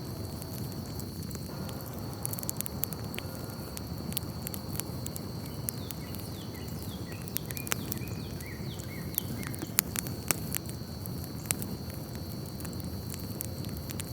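Campfire crackling, with irregular sharp pops over a steady low rush of burning. A steady high tone runs underneath, and a few short falling chirps, like small birds, come about halfway through.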